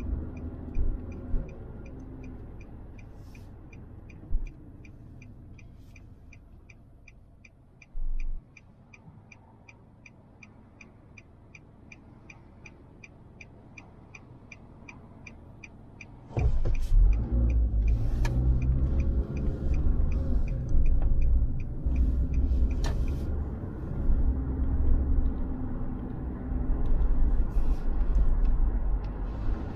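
Inside a car waiting at an intersection: the turn-signal relay ticks steadily, about three ticks a second, over a quiet idle. About sixteen seconds in, the car pulls away and loud engine and road rumble rises, and the ticking stops.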